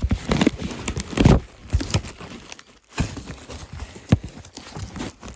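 A cardboard shipping box and its packing paper being handled and pulled open by hand: irregular knocks, rustling and crinkling.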